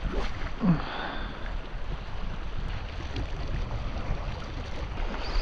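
Strong wind buffeting the microphone, a steady low rumble, with one short sound falling in pitch a little under a second in.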